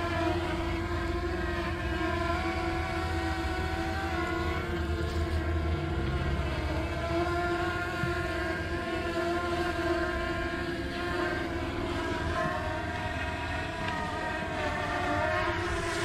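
Small DJI quadcopter drone's propellers whining steadily nearby, a stack of pitches that drift slightly up and down as it flies.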